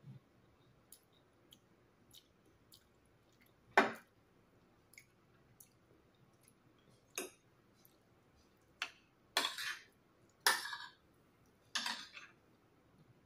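Metal spoon and fork clinking and scraping against a plate of rice. There is a sharp clink about four seconds in, then more clinks and three short scrapes in the last five seconds, with faint small ticks between.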